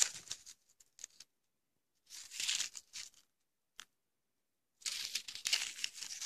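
Unboxing packaging crinkling and rustling as it is handled, in three bursts a couple of seconds apart, with a single small click between the second and third.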